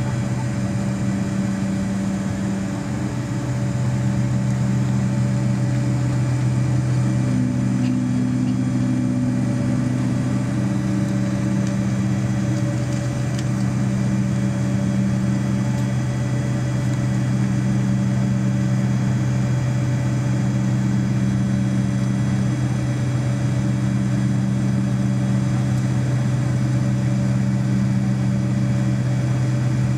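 Boeing 737-200's Pratt & Whitney JT8D turbofan engines running at a steady idle, heard from inside the cabin while the airliner holds on the runway before takeoff. It is a steady, low hum, growing a little louder about three to four seconds in.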